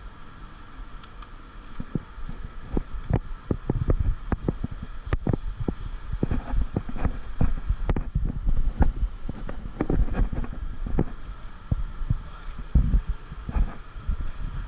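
Irregular low thumps and knocks, at times several a second, over a faint steady hum: movement and handling noise close to the microphone.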